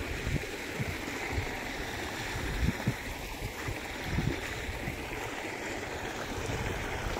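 Steady rushing outdoor noise, with irregular low rumbles of wind buffeting the phone's microphone.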